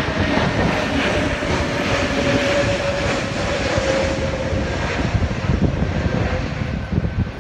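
Airbus A321neo's Pratt & Whitney PW1100G geared turbofan engines at approach power as the jet passes low overhead with its gear down: a steady rumble and roar of jet noise with a whine that slowly falls in pitch as it goes by.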